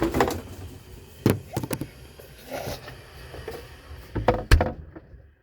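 A series of sharp knocks and clatters, the loudest one about four and a half seconds in.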